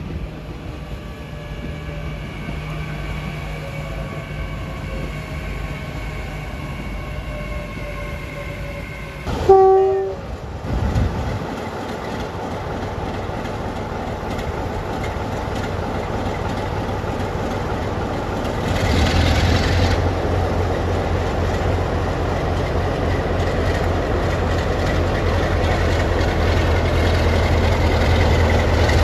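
Diesel locomotive approaching with a steady engine whine, then a short, loud two-tone horn blast about a third of the way in. After that a second diesel locomotive runs with a deep engine rumble that steps up louder a little past halfway and keeps building.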